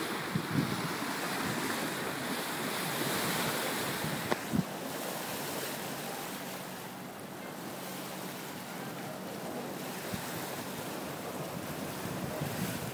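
Wind buffeting the microphone and sea water rushing along the hull of a Hinckley SW-48 sailing yacht under way in choppy water. A couple of sharp knocks come about four and a half seconds in.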